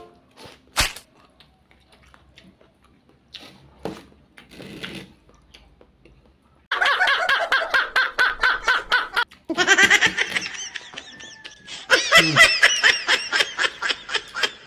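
A man laughing hard: a rapid string of loud, high-pitched laughs starting about seven seconds in, with a brief break about halfway through. Before it, only a few faint clicks and mouth sounds of eating from the plate.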